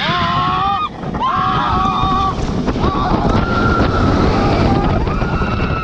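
Riders screaming in several long, held cries over heavy wind rush on the microphone, as an Intamin mega coaster train plunges down its first drop.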